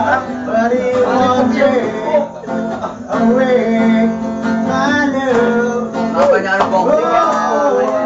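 Singing to an acoustic guitar strummed as accompaniment. The voice moves through a sung melody over the steady guitar chords.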